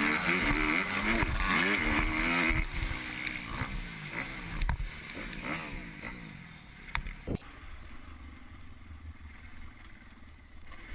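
Dirt bike engine revving up and down, heard through a helmet camera with wind rushing over the microphone. After a few seconds the engine note falls away to a quieter rumble and wind, broken by a few sharp knocks.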